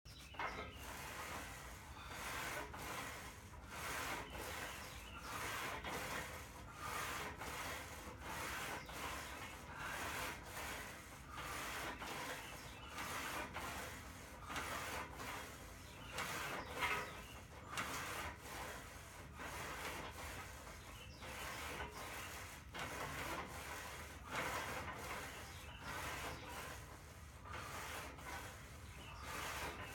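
Rhythmic rubbing, rasping noise from repeated bench-press reps on a Smith machine, one about every one and a half seconds.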